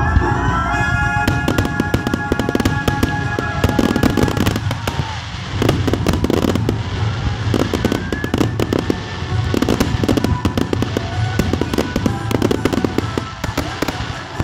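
Fireworks finale: aerial shells bursting in a dense, continuous barrage of bangs and crackles over a low rumble.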